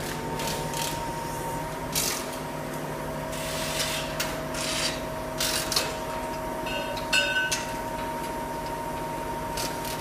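Steady hum of a truck crane's engine running, with scattered clanks and scrapes of steel scaffolding parts being handled. A brief ringing metal clank comes about seven seconds in.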